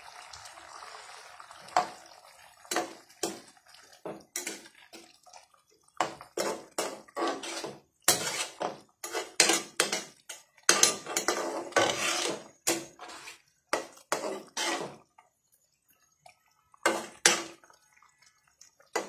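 A spatula stirs soya chunks into a thick curry in a metal pan, making a run of scrapes and knocks against the pan with wet squelching. The stirring stops for a couple of seconds near the end, then a few last strokes follow.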